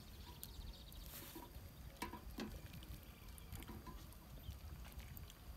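Thin stream of water pouring from a kettle into a hollowed-out coconut, faint and pattering, with a few small clicks and taps.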